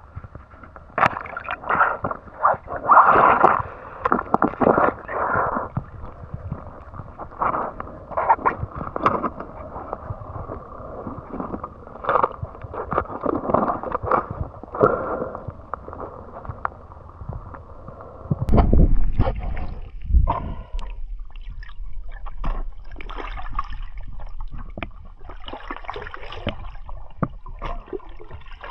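Water sloshing and gurgling in irregular surges, as something moves through it, with a heavy low thump about eighteen seconds in.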